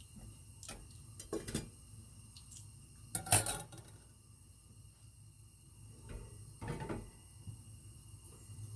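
Hard objects being handled and set down: a scattering of clinks and knocks, loudest about three and a half seconds in.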